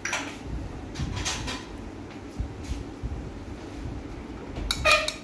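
Soft kitchen handling noises: light rustles and knocks, with a brief louder clatter near the end.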